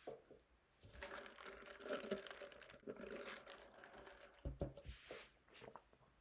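Typing on a computer keyboard: a run of quick key clicks starting about a second in, thinning out to a few louder clicks near the end.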